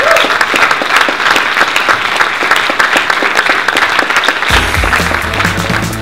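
Audience applauding, many hands clapping loudly. Near the end a deep bass-heavy music sting comes in under the clapping.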